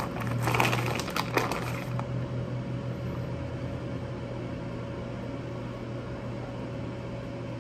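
Steady low hum of a kitchen appliance with a faint held tone. Light rustling and small taps in the first two seconds as shredded cheese is scattered over the pizza.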